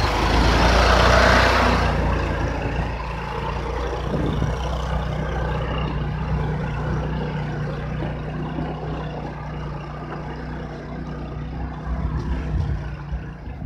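Homemade karakat's Lifan 24 hp petrol engine running under load as the machine pulls away up a steep dirt hill. It is loudest in the first couple of seconds, then steadily fades as the vehicle climbs away.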